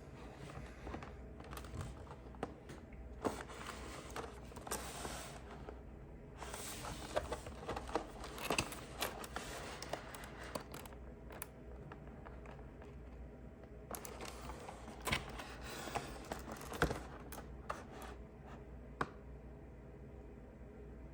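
Packaging being handled and opened by hand: rustling and crinkling in stretches, with scattered light clicks and taps.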